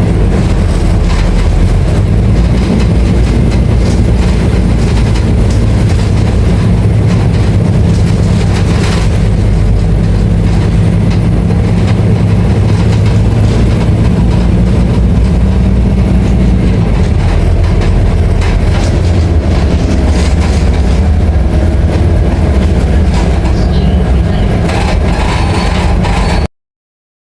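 Diesel engine of a Scania K310IA articulated bus running steadily, with a constant low hum and many small rattles and knocks over it. The sound cuts off suddenly near the end.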